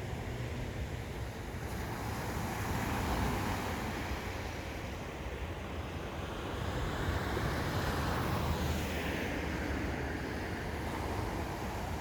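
Sea surf washing onto a beach, swelling twice as waves come in, over a low wind rumble on the microphone.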